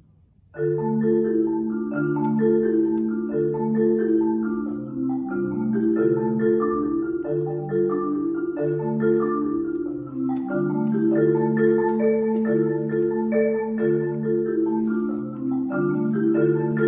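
Solo concert marimba played with mallets, several notes at a time over a repeating low line. It comes back in about half a second in after a brief silent pause and then plays on without a break.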